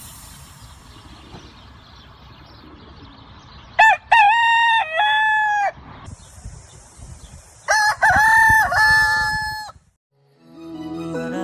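A rooster crowing twice, each crow a long call of about two seconds, with a steady high hiss between the crows. Music starts near the end.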